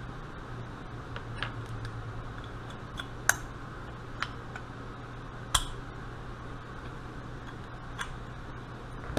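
Scattered sharp metal clicks and taps, about half a dozen, from the parts of a Carter mechanical fuel pump being handled and fitted as the pump's rod is worked into its body. A steady low hum runs underneath.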